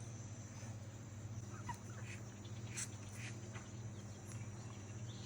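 Faint outdoor ambience: a steady high insect drone over a low steady hum, with a few brief animal calls about two to three seconds in.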